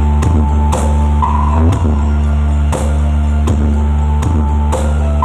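Loud rock-style music with drums, guitar and heavy bass played through a large sound system during a sound check.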